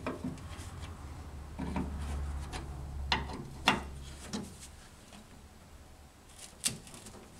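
A screwdriver working the screws of a car door striker plate while the metal plate is shifted inwards: a handful of sharp metal clicks and taps, with some scraping and rubbing in between.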